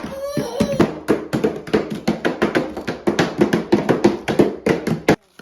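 Children pounding bagged Oreo cookies with hammers, crushing them into crumbs: rapid, irregular knocks, about five a second, that stop abruptly near the end.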